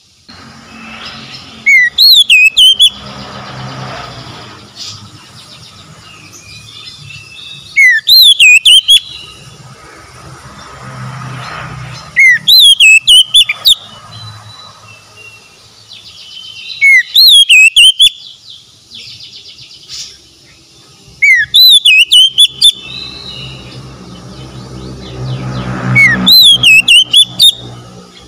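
Oriental magpie-robin singing: six short, loud phrases of quick rising and looping whistles, one every four or five seconds, over a low steady rumble.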